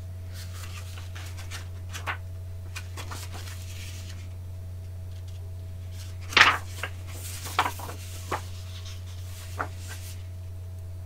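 Paper and card being handled: a few short rustles and light taps, the loudest about six seconds in, over a steady low hum.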